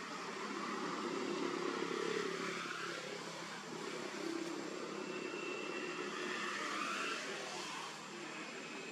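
Steady outdoor background noise that swells and fades like passing motor traffic, with a faint high whine rising and falling about two-thirds of the way through.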